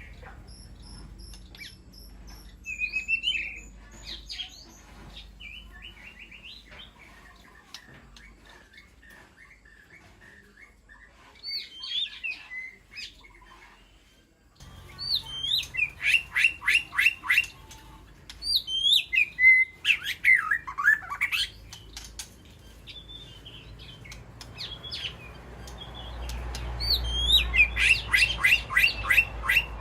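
White-rumped shama singing: varied whistled phrases, with rapid runs of repeated notes and sweeping downward slurs, over a low steady hum.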